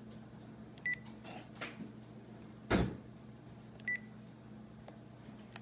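Panasonic cordless phone handset giving two short, high key beeps about three seconds apart as its buttons are pressed. Between them comes a dull thump of handling, the loudest sound, over a low steady hum.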